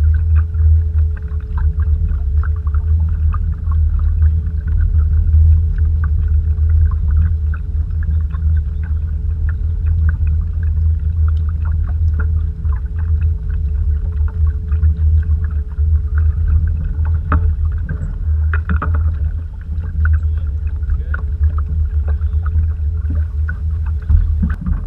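Canoe out on the water: a steady low rumble with a constant faint hum and many scattered light clicks and knocks, dipping briefly near the end.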